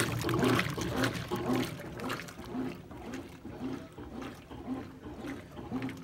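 Brastemp Clean BWC 11 top-load washing machine agitating: water and suds slosh in the tub in a rhythmic churn, about two strokes a second, over a low steady hum. It is its first wash after a mechanical rebuild, run to flush out assembly residue. The churning is louder in the first two seconds.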